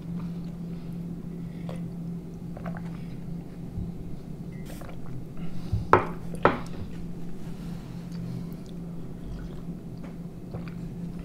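Close-miked mouth sounds of sipping hot coffee from a mug and chewing, over a steady low hum. Two sharp clicks about half a second apart come about six seconds in.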